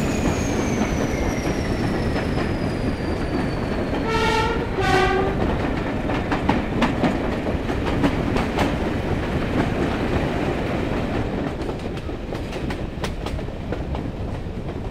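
Class 31 diesel locomotive with its English Electric 12SVT engine hauling a train through a tunnel, heard from a carriage window: a steady heavy rumble of engine and wheels, with a high whine falling in pitch over the first few seconds. About four seconds in the horn sounds two short notes, the second lower, then wheels click over rail joints, and the rumble eases a little near the end as the train leaves the tunnel.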